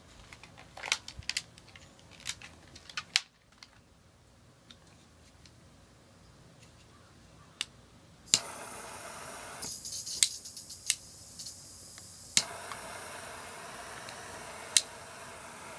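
Small handling clicks and rustling, then about eight seconds in a butane torch lighter clicks and lights with a steady hissing flame. The hiss thins out for a couple of seconds and comes back fuller with another click.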